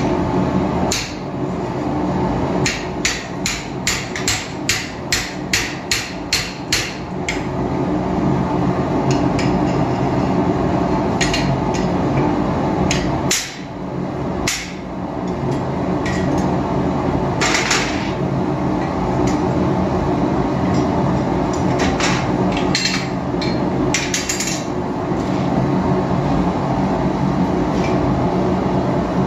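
Hand hammer striking hot steel on an anvil: a run of about a dozen even blows at roughly three a second a few seconds in, then scattered single strikes. Underneath is the steady roar of the running forge.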